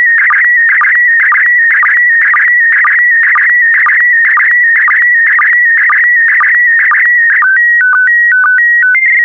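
Slow-scan TV (SSTV) picture signal in PD120 mode: a warbling tone near 2 kHz, broken about twice a second by a short lower sync blip as each pair of image lines is sent. These are the last scan lines of the picture. About seven seconds in, the scanning stops and gives way to a short run of flat tones jumping between a few pitches, marking the end of the transmission.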